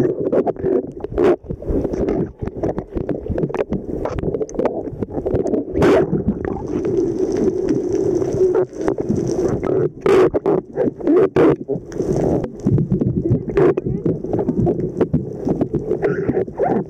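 Muffled underwater noise through a waterproof camera housing: a constant dull rumble of moving water with frequent sharp knocks and clicks.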